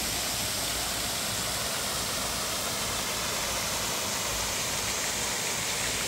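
Steady rushing and splashing of water from pond fountain jets and a rock waterfall falling into the pond.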